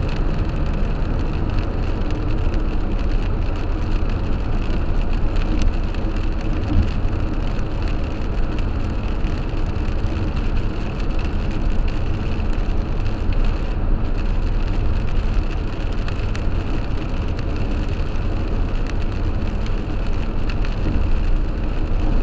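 Steady road and tyre noise of a car driving on a wet highway, heard from inside the cabin, with rain spattering on the windshield.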